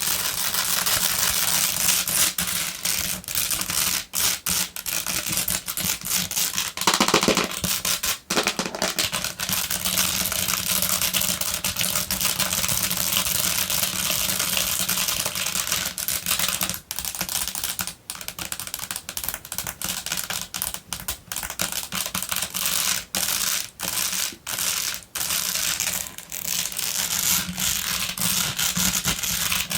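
Long fingernails tapping and scratching fast on a basket: a dense, unbroken run of rapid clicks and rasping.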